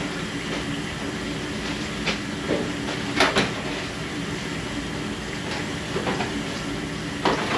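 A steady mechanical hum with several sharp knocks and clanks over it, two close together about three seconds in and another near the end.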